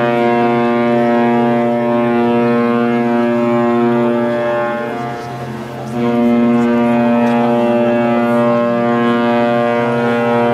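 Cruise ship's horn sounding long, steady blasts with one deep pitch: the first blast fades about five seconds in, and a second begins about a second later.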